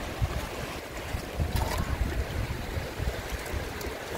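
Wind buffeting the microphone in irregular gusts over the steady wash of surf on an open beach.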